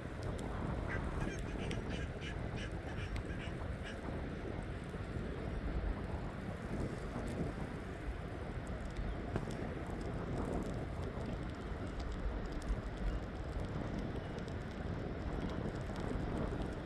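A bird gives a quick run of short, evenly spaced calls starting about a second in and lasting a few seconds, over a steady low outdoor rumble of a city street.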